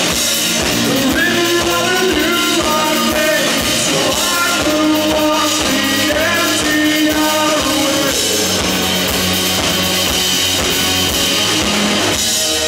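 Live rock band playing a song at full volume, with electric guitar, bass guitar, drum kit and a sung lead vocal, heard from the audience floor.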